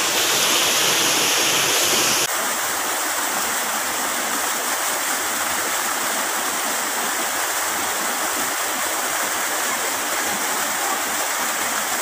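Steady rushing of a shallow mountain stream over rocks. About two seconds in, it changes abruptly to the steady pouring and splashing of a small waterfall into a pool.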